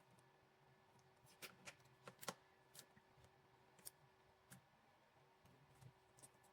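Faint, scattered clicks and crackles of hands picking at and peeling the cloth tape and loom off a vehicle wiring harness, a dozen or so small ticks over a few seconds, the sharpest a little after two seconds in.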